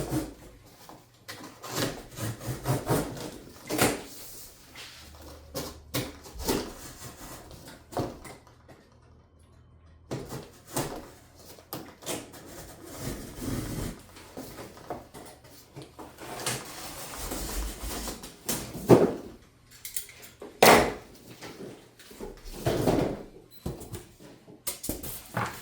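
Thick wooden cutout and cardboard being handled and shifted on a hard workbench: irregular wooden knocks, scrapes and rustling, with a couple of sharper knocks past the middle.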